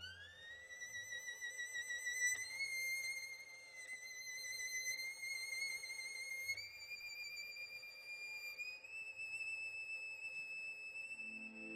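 Solo violin holding a high note with vibrato. It slides up near the start, then climbs in small steps through a few long held notes. Lower accompanying notes come back in near the end.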